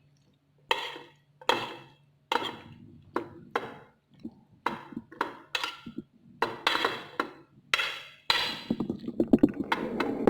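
Utensil knocking and scraping against a bowl while a dressed salad is mixed or served, in separate strokes a little more than once a second, becoming a quick run of clatter near the end.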